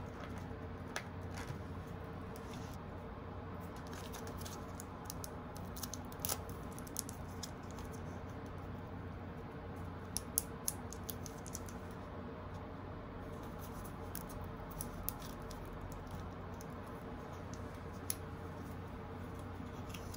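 Scattered light clicks and crinkles of a clear plastic bento container and a small condiment sachet being handled and squeezed, over a steady low hum.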